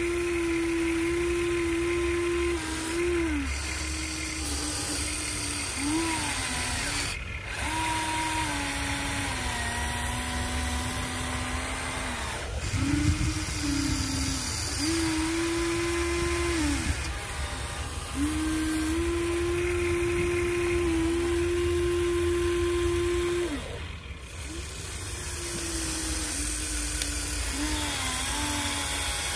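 Huina 1593 RC excavator's electric motors whining as it slews and works its boom, arm and bucket. The whine steps between a higher and a lower pitch as functions change, and breaks off briefly every few seconds.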